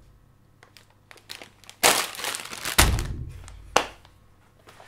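A plastic bag of spinach leaves crinkling and thumped down on a table, followed by a sharp knock about a second later.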